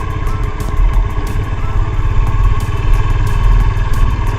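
Motorcycle engine running steadily, with a dense low rumble.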